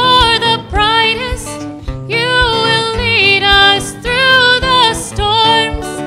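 Praise band music: a girl's voice singing a worship song into a microphone, accompanied by strummed acoustic guitar.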